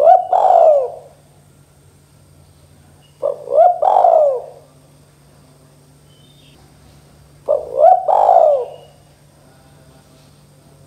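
Spotted dove cooing: three phrases about four seconds apart. Each phrase is a couple of quick short notes leading into a longer, arching coo.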